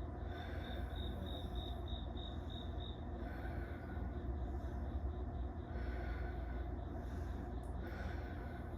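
An insect chirping in a fast, even pulse, about three chirps a second, for the first three seconds, then fainter. Slow breaths come roughly every two and a half seconds over a steady low rumble.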